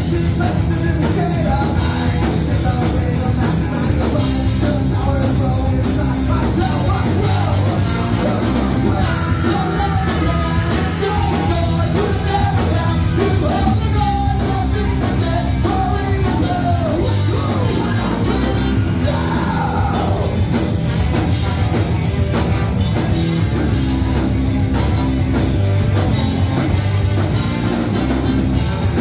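Live rock band playing loud, with a sung vocal line over the guitars and drums for about the first twenty seconds, then the instruments alone.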